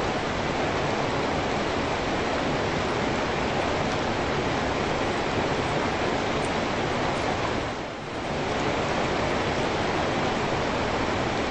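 Steady rain falling on a wet paved street, an even hiss with no single drops standing out. It dips briefly about eight seconds in and then comes back.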